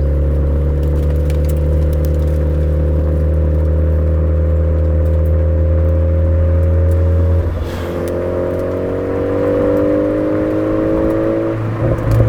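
Suzuki Swift Sport ZC33S's 1.4-litre turbocharged four-cylinder engine running through a Fujitsubo aftermarket exhaust while driving downhill. The steady note changes about seven and a half seconds in, then rises slowly and shifts again briefly near the end.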